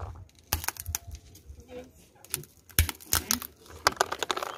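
A mobile phone's plastic casing and glass screen cracking and crunching under a slowly rolling car tyre: a string of sharp cracks in several clusters, the screen shattering.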